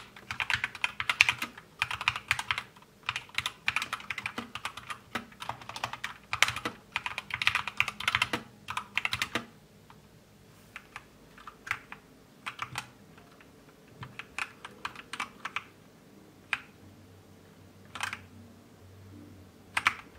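Zet Blade Pro mechanical keyboard with Kailh Red Optical linear switches being typed on: fast, dense key clacks for about the first nine seconds, then slower, separate keystrokes with gaps between them.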